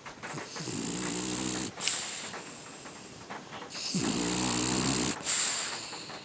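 French bulldog snoring: two long buzzing snores about three seconds apart, each followed by a breathy, hissing breath.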